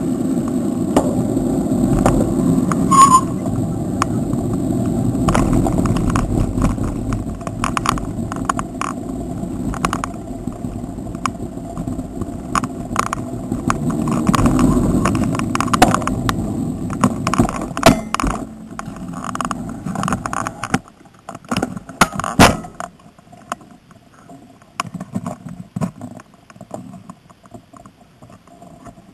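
Low rumbling road and wind noise from a moving bicycle, with the bike rattling and clicking, and a short ring about three seconds in. About 21 seconds in the rumble drops away as the bicycle slows, leaving scattered clicks and rattles.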